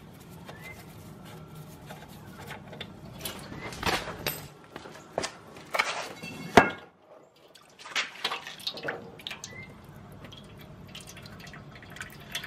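Allen key working the oil drain plug of a 5 HP Briggs and Stratton mower engine, with irregular metal clicks and knocks, one sharp knock about two-thirds in the loudest, and oil dripping into a drain pan as the plug comes loose.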